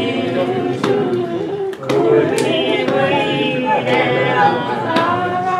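Several voices singing together, a worship song, with a sharp tap roughly once a second keeping the beat.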